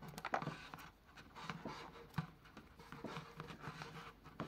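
Rustling and scraping of a rolled-up butyl sound-deadening sheet as it is pushed by hand through the woofer opening of a KEF Q100 speaker cabinet. It is a run of soft, irregular scratches and crinkles.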